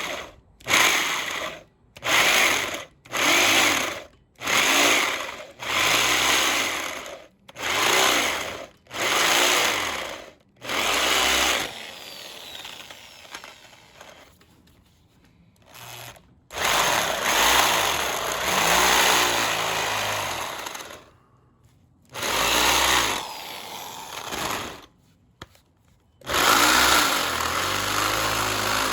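Handheld electric drill boring out the head of a rounded-off engine bolt, run in about ten short bursts of a second or so, then in longer runs of several seconds.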